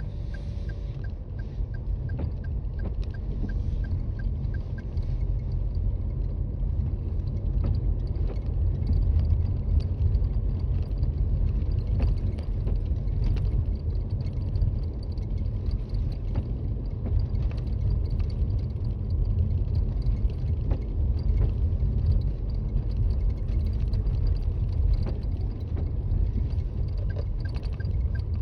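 Inside the cabin of a Toyota Raize driving on a snowy road: a steady low rumble of tyres and road, with faint scattered clicks and creaks. A light, regular ticking is heard near the start and again near the end.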